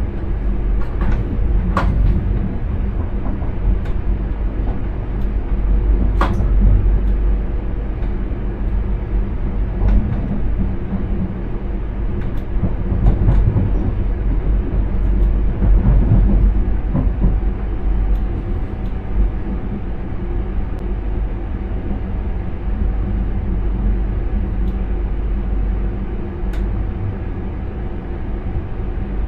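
Intercity train running, heard from inside the driver's cab: a steady low rumble with a few sharp clicks. A steady higher tone comes in about halfway through.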